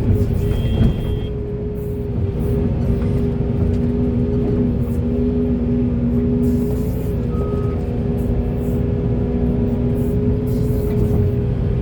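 Heavy excavator's diesel engine and hydraulics running steadily: a low rumble with a held, steady whine.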